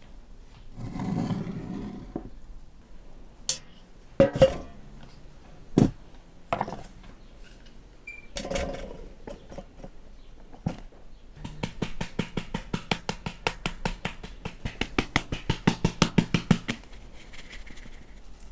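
Flour being sifted through a round wooden sieve over a metal bowl, making a quick, even run of taps for about five seconds in the second half. Before that come a few scattered knocks and short rustling pours as bowls and a jar are handled on a wooden table.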